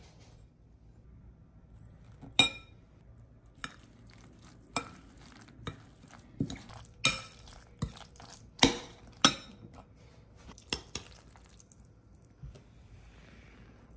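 Kitchen utensil knocking and clinking against a dish: about a dozen irregular taps roughly a second apart, one a couple of seconds in ringing briefly.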